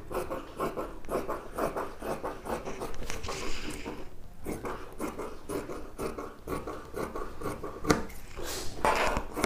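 Large fabric scissors cutting through cotton cloth on a table, in a steady series of short snips as the blades work along the cutting line.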